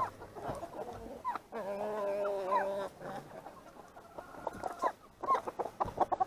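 A flock of roosters and hens clucking and calling, with one long drawn-out call about a second and a half in and a run of short clucks near the end.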